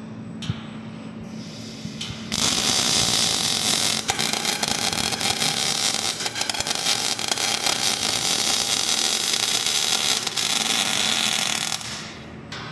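KUKA welding robot's MIG torch welding a joint on a steel square-tube truss: the arc strikes about two seconds in, crackles and sizzles steadily for about ten seconds, then cuts off near the end. Before the arc, a low steady machine hum.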